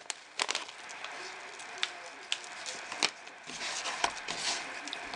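Paper spice packet crinkling as seasoning is shaken out of it, with scattered light clicks. From about three and a half seconds in, hands squish and toss raw seasoned chicken wings in a plastic bowl.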